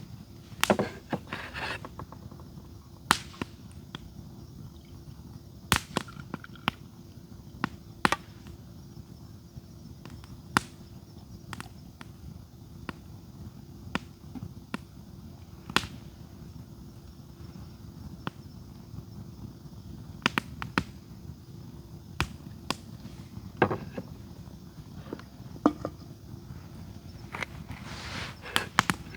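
Wood campfire crackling: irregular sharp pops and snaps, a few every couple of seconds, over a steady low rush.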